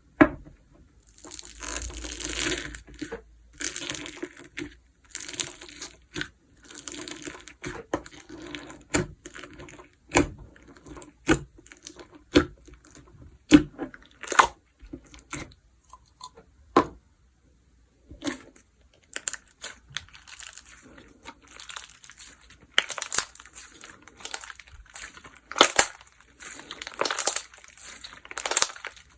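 Slime being squished, stretched and pressed by hand, giving many sharp pops and clicks among stretches of crackling noise, with a brief pause about two-thirds of the way through.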